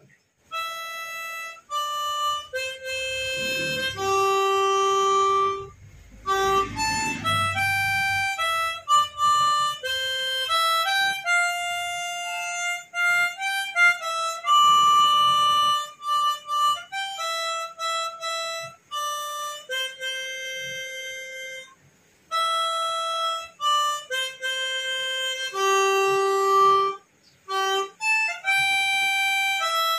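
Harmonica played solo: a slow melody of held notes, with a few brief pauses between phrases.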